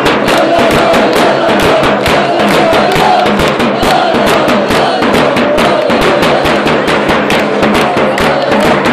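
Football supporters chanting in unison to a large bass drum beaten with a mallet, with hands clapping along; the drum and claps keep a steady beat under the crowd's voices.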